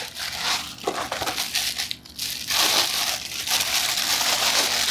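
Plastic bag crinkling and cardboard rustling as a charger brick is pulled out of its small box and unwrapped. The crackling is patchy at first, dips briefly about two seconds in, then grows louder and continuous.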